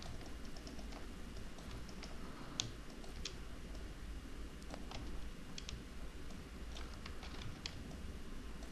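Scattered, irregular clicks of a computer mouse and keyboard, the loudest about two and a half seconds in, over a low steady hum.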